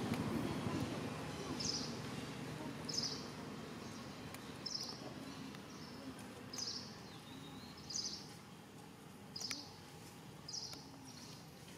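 A bird calling over and over, about seven short high chirps spaced one to two seconds apart, over a low outdoor background rumble that fades over the first few seconds.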